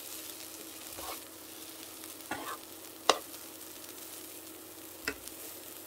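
Seasoned dried shredded squid and green chili peppers sizzling in a hot nonstick frying pan as they are stirred and tossed with a metal spoon and fork. Four sharp clicks of the utensils against the pan stand out, the loudest about three seconds in, over a faint steady hum.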